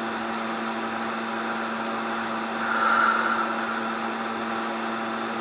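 Steady mechanical hum and hiss of a running appliance such as a fan, with a constant low tone; it swells briefly about three seconds in.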